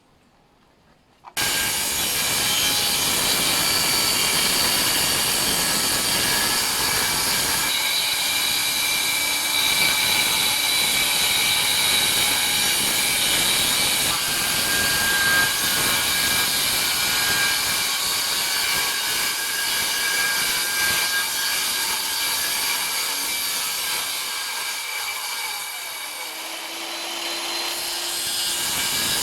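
Circular saw starting about a second in and cutting through a sheet of plywood, running steadily with a high whine. Its blade is set just deep enough to clear the bottom of the wood.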